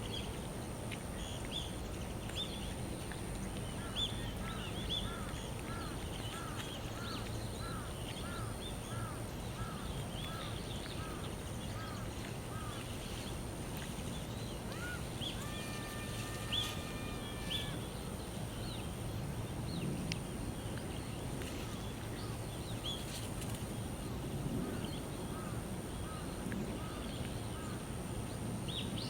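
Birds chirping outdoors: a run of short, repeated chirps about twice a second, other scattered calls, and a held tone for a couple of seconds midway, over a steady low hum.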